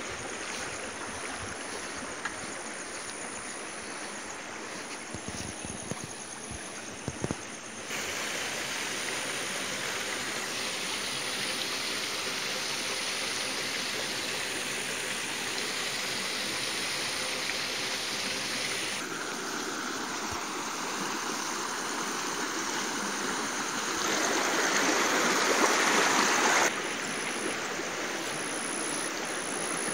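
Shallow stream running over stones, a steady rushing and gurgling of water. The level jumps abruptly a few times and is briefly louder about four-fifths of the way through.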